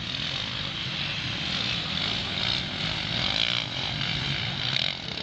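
Motocross motorcycle engines buzzing in the distance, a steady drone that swells and fades as the bikes run around the track.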